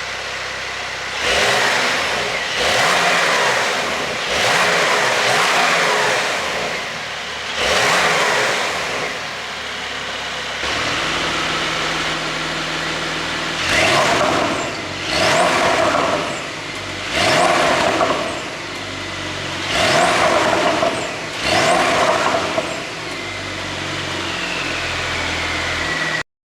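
Porsche 911 992 Carrera's twin-turbo flat-six, running a pops-and-bangs ECU tune, revved from idle: about four longer revs first, then about five quicker blips, each dropping back to idle, with exhaust pops and crackles meant to come on the overrun.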